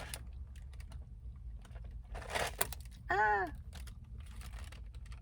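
Faint scattered clicks and a short rustle of food packaging being handled, with a brief wordless vocal sound a little after three seconds in.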